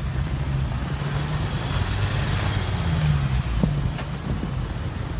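Cars driving slowly across a railway level crossing close by: engine hum and tyre noise that swells as a vehicle passes, with a couple of light knocks from the tyres going over the rails.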